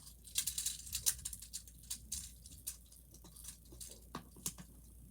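Small plastic fidget toys being handled and put into a storage box: a quick run of clicks and rustles about half a second in, then scattered lighter clicks.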